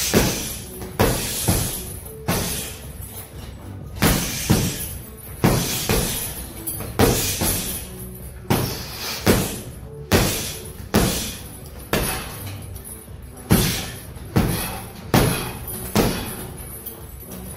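Gloved punches landing on a hanging heavy punching bag: sharp hits at an uneven pace, often in quick pairs, over background music.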